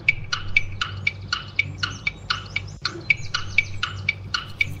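Countdown-timer clock ticking sound effect: sharp, even ticks about four a second, over a low steady hum, marking the answer time running out.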